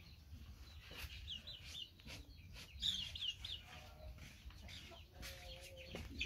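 Chickens calling in the background: short, high, falling calls in quick runs of three or four, loudest about three seconds in, over faint scattered clicks.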